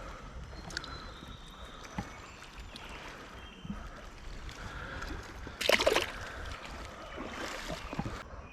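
Water sloshing and splashing in a shallow creek, with one louder splash a little past halfway.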